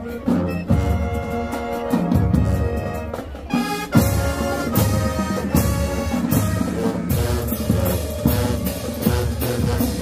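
High school marching band playing: brass holding chords over a pulsing drumline. About four seconds in a crash hit opens a fuller, louder passage.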